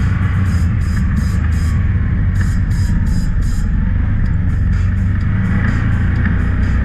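Can-Am Maverick X3's turbocharged three-cylinder engine running steadily as the side-by-side drives over sand, heard from inside the open cab. Music with a quick ticking beat plays over it.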